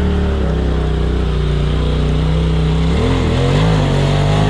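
Polaris RZR side-by-side's engine revving hard under load as it climbs a steep rock ledge. The revs hold steady, then rise and fall from about three seconds in.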